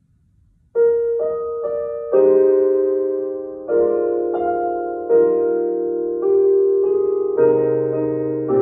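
Grand piano playing a solo hymn arrangement, entering about a second in with slow, sustained chords struck every second or so.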